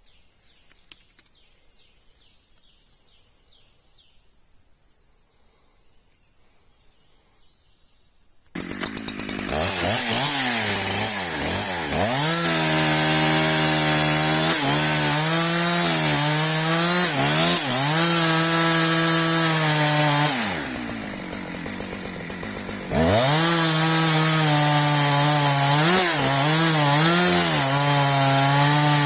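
Husqvarna chainsaw starting about eight seconds in. It revs up and down several times, then runs at high speed cutting wood, drops off briefly about two-thirds of the way through, and runs hard again. Before it starts there is only a steady high-pitched buzz.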